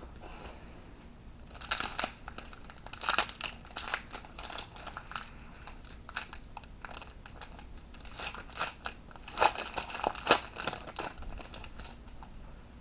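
Crinkling and tearing of a baseball-card pack wrapper being opened by hand, a run of irregular sharp crackles, with the cards handled.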